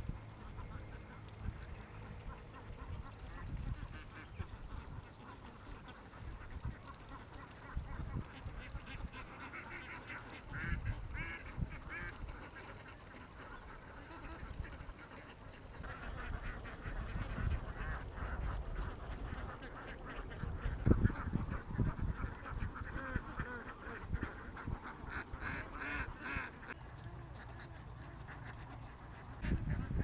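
A flock of domestic ducks quacking, the calls thickening in the second half, over low rumbling bumps and one sharp thump about twenty seconds in.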